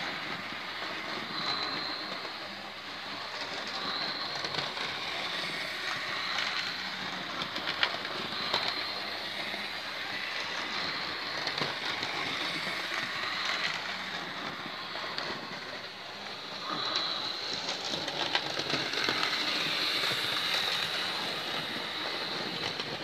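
Hornby OO-gauge Thomas the Tank Engine model locomotives running on the layout's track: a steady electric motor whine that swells and fades as they pass, with a few sharp clicks of wheels over rail joints.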